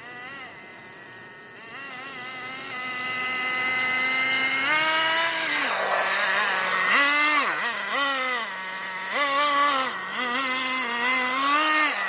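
Tornado S30 buggy's engine running and getting louder over the first few seconds, its pitch rising and falling again and again as the throttle is opened and eased off.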